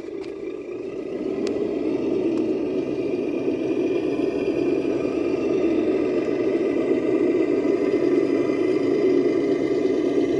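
Radio-controlled crawler truck driving, its electric motor and gear drivetrain whirring steadily; the sound builds over the first couple of seconds, with a few light clicks early on.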